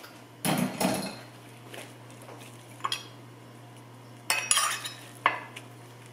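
A metal spoon clinking and scraping against a glass cup of water and against sticky oatmeal cookie dough, in a handful of short knocks and scrapes, over a low steady hum.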